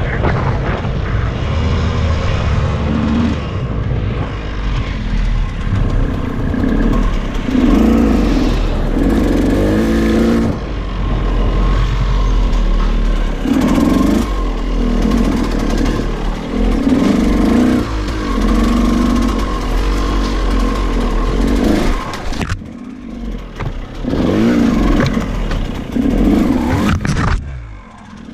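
KTM EXC 200 two-stroke single-cylinder enduro engine being ridden off-road, revving up and down in repeated surges, with the throttle briefly closed twice near the end.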